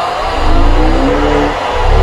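The 'aughhhh' snoring meme sound: a loud, rasping snore-groan with a deep rattling buzz and a pitch that rises slowly. It dips briefly near the end, then the next 'augh' starts.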